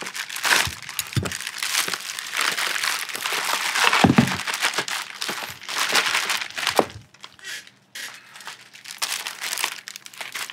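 Thin plastic bag crinkling and rustling as it is opened and handled, with two dull knocks about four and seven seconds in; the rustling thins out and gets quieter in the last few seconds.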